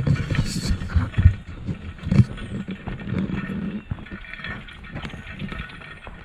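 Footsteps of a hiker walking a trail, as uneven low thumps about a second apart over a steady outdoor background hiss.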